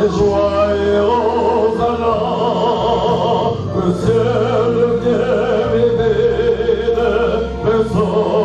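A man singing solo into a hand-held microphone, holding long notes with a wide vibrato, over a steady instrumental backing.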